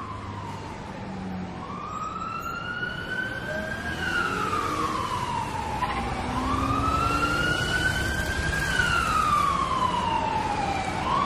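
Emergency-vehicle siren wailing: a slow, repeated rise and fall in pitch, growing louder.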